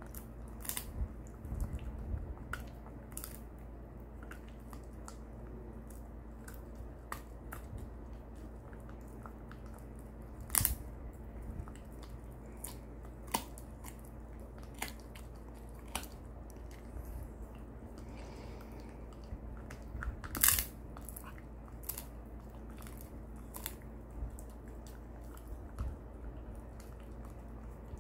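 Shiba Inu biting and chewing on a big bone chew treat: irregular sharp crunches and teeth clicks, the loudest about ten and twenty seconds in, over a steady low hum.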